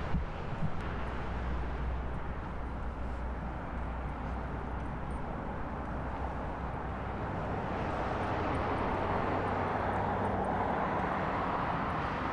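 An engine running steadily with a low hum, with a couple of knocks right at the start. About eight seconds in, a rushing noise swells up for a few seconds.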